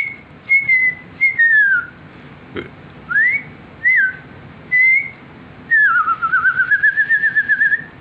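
A person whistling: a string of short single notes, each sliding up or down, about one a second, then a longer warbling whistle near the end.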